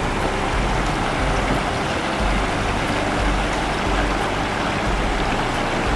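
Floodwater rushing over a small dam and down a swollen creek: a steady rush of water.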